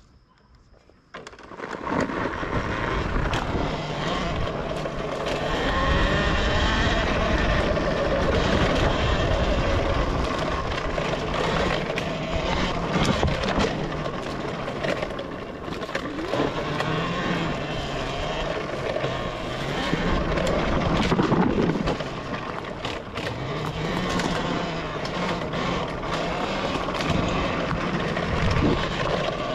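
Talaria Sting electric dirt bike with a K.O F-Spec motor pulling away about a second in and ridden along a dirt trail. The motor's whine rises and falls with the throttle over wind, tyre noise and frequent chassis rattles and knocks.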